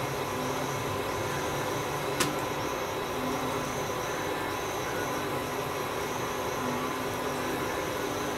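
Steady machine-like hum and hiss, with one sharp click about two seconds in.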